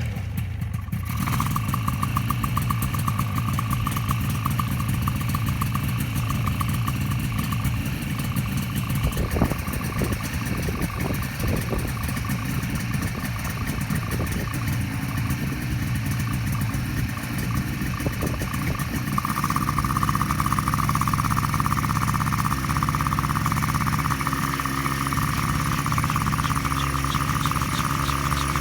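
Micron ultralight coaxial helicopter's engine running steadily just after starting, with a steady whine above it that grows louder about two-thirds of the way through; a few knocks about ten seconds in.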